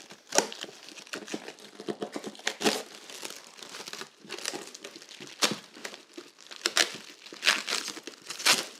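Packaging being handled and pulled apart while a saw blade and accessories are unpacked: irregular crinkling and crackling with sharper tearing snaps, the loudest several seconds in and near the end.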